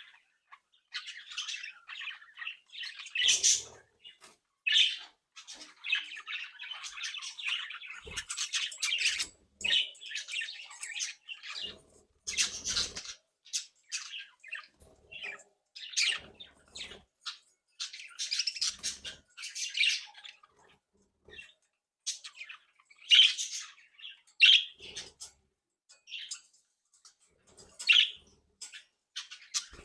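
Several budgerigars chattering: a continual run of short chirps, warbles and squawks with brief pauses, louder calls standing out now and then.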